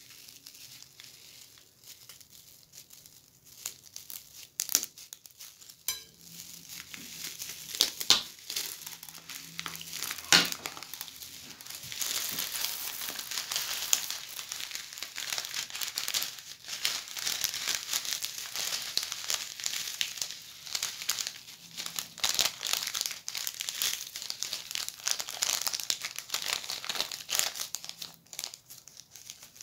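Clear plastic piping bag crinkling as hands squeeze it, pushing small beads out onto slime in a glass dish. A few sharp crackles at first, then a dense, continuous crackle from about twelve seconds in until shortly before the end.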